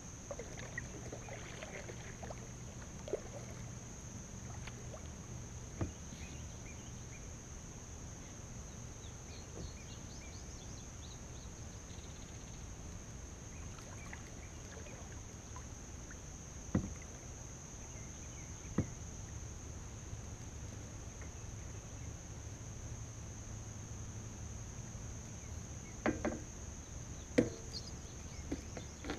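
Kayak paddling: a few sharp knocks from the paddle against the plastic hull, the loudest cluster near the end, over a steady low hum and a steady high tone.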